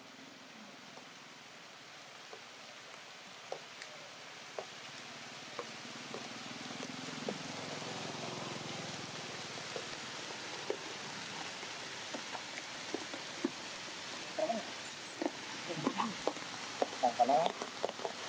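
Steady outdoor hiss that slowly grows louder, with scattered faint clicks and, in the last few seconds, a run of short high squeaks.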